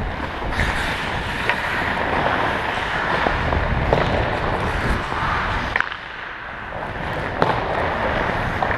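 Ice skates scraping and carving across the rink, heard through a helmet-mounted camera's microphone with a low rumble from the skater's motion. A few sharp clacks come through, and the scraping eases briefly about six seconds in.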